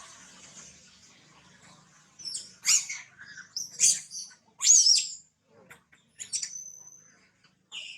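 A series of short, high-pitched squeaky chirps from a small animal, loudest from about two to five seconds in, some with a wavering pitch. Near the end comes one longer, steady whistled note.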